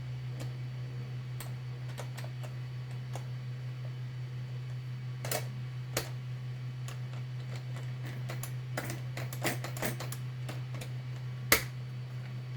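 Scattered light clicks and taps of plastic toy-blaster parts being handled and fitted together, with a sharper click near the end, over a steady low hum.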